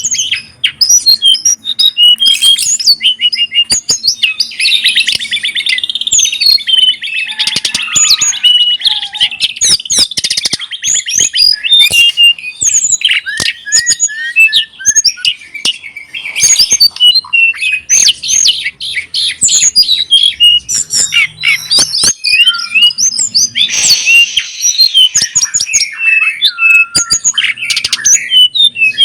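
Caged pet songbirds singing: a dense, unbroken run of quick chirps, trills and harsh calls, with sharp clicking notes mixed in.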